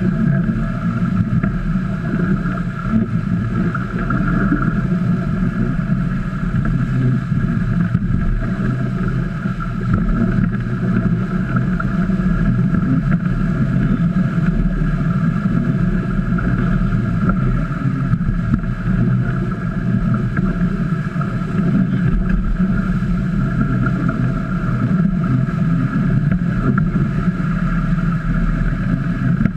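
Steady rush of wind on the microphone and water streaming past the hulls of a small trimaran under sail, heaviest in the low end, with a constant whistling hum above it.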